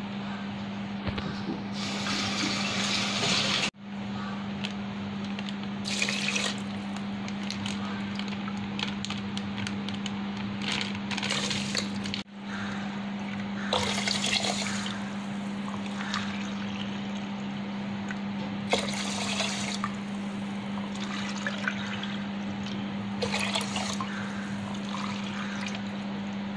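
Liquid poured in several short spells into a pot of raw rice: coconut milk and blended pandan-leaf water filling a rice-cooker inner pot. A steady low hum runs underneath.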